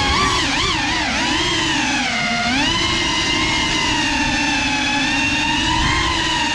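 GEPRC Cinelog 35 ducted cinewhoop quadcopter's brushless motors and propellers whining in flight. The pitch wavers quickly with throttle changes, dips about two seconds in, then holds fairly steady.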